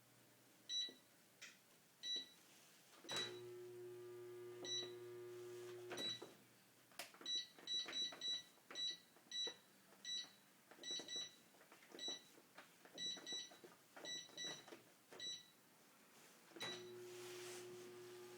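Control-panel beeps from an old Dongyang Magic washing machine as its buttons are pressed: single beeps at first, then quick runs of them. A steady hum from the machine runs for about three seconds and starts again near the end.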